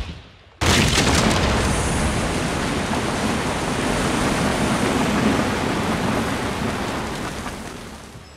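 A sudden loud rush of floodwater gushing through a broken door, starting about half a second in and fading slowly toward the end.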